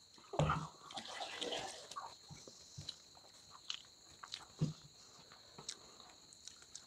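Quiet hand-eating sounds: fingers scraping and mixing rice on a steel plate, with soft chewing, scattered small clicks and a thump about half a second in as a steel tumbler is set down. Crickets chirr steadily and high in the background.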